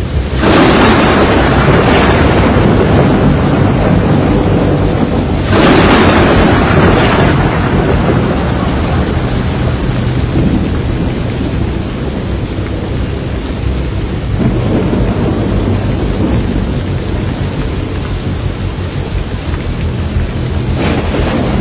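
Thunderstorm: heavy steady rain with loud thunder cracks, one just after the start and another about five seconds later, each fading into a long rumble, and a third starting near the end.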